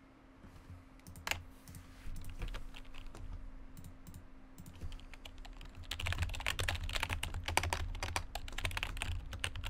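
Typing on a computer keyboard: a few scattered clicks and keystrokes at first, then fast, continuous typing from about six seconds in.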